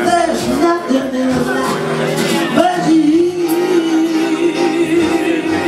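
A male singer singing a jazz song live with instrumental accompaniment: a few gliding phrases, then a long held note with a wide vibrato from about a third of the way in.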